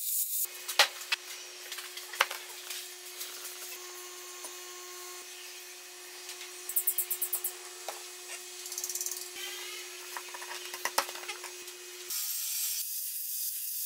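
Notched wooden pieces of a castle joint being fitted together by hand: sharp wooden knocks and rubbing, with a quick run of taps in the middle, over a steady hum. A steady high hiss takes over near the end.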